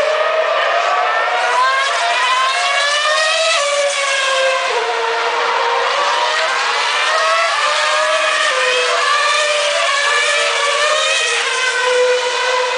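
Several racing car engines at high revs, heard from trackside. Their pitch climbs and drops sharply at each gear change, with the notes of different cars overlapping throughout.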